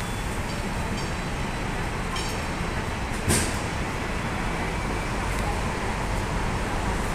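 Busy street traffic with a double-decker tram and a double-decker bus running past, mostly a steady low engine and road noise. There is one short sharp sound about three seconds in.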